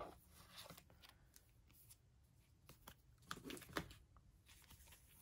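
Faint rustling and light taps of photocards and plastic card sleeves being handled at a binder, with a few sharper clicks about three and a half seconds in.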